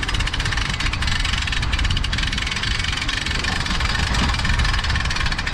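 Small boat's outboard motor running steadily, a low rumble with a fast ticking rattle over it.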